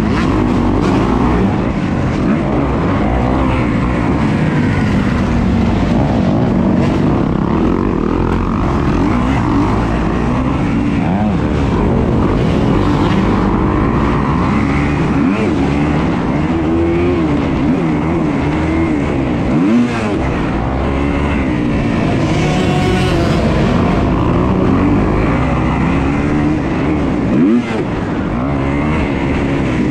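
Kawasaki dirt bike engine racing on a dirt track, revving up and falling back again and again as the throttle is worked through the corners, with two short throttle cuts, about two-thirds of the way in and near the end.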